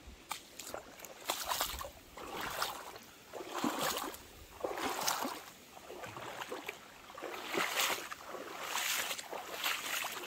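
A person wading through a stream, the water sloshing and splashing in surges roughly once a second with each step.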